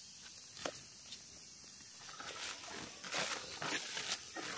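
Leaves rustling and crinkling in a few short bursts, starting about halfway through.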